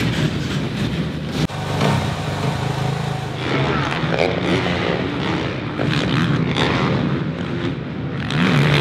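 Suzuki RM-Z450 motocross bike's four-stroke single idling steadily. From about three and a half seconds in, motocross engines rev up and down, the pitch rising and falling, with a louder burst of revving near the end.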